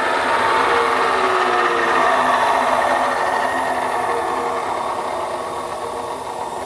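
Cobra CB350MA abrasive chop saw's motor and cut-off wheel slowing down: a steady hum whose pitch slides lower and fades gradually, with no cutting.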